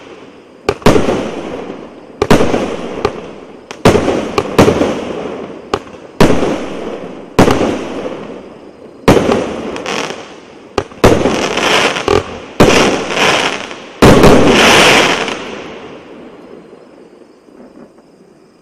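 A 1-inch, 49-shot fireworks cake firing its final shots: sharp bangs of shells bursting roughly once a second, each trailing off in a fading hiss. The last and loudest burst comes about three-quarters of the way through, and then the firing stops and the sound dies away.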